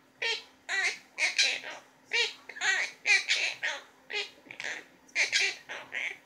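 Green pet parrot chattering in a run of short, speech-like syllables, about two a second, in its mimicking of talk and counting.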